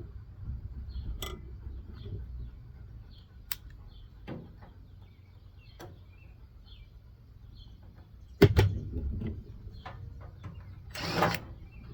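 Hand dismantling of an electronic appliance: scattered light clicks and knocks of parts and tools, a loud clank about two-thirds of the way in, and a scraping rattle near the end.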